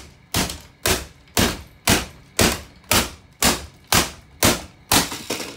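Hammer blows on the plastic body of a Bissell stick vacuum, about eleven hard strikes at a steady two a second, breaking the casing apart.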